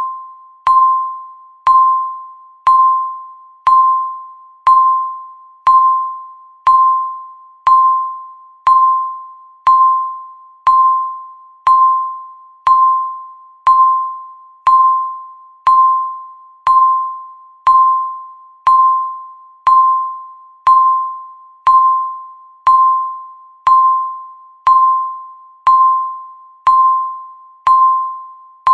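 Electronic countdown timer beeping once a second: a single high beep at one steady pitch, each starting sharply and fading before the next.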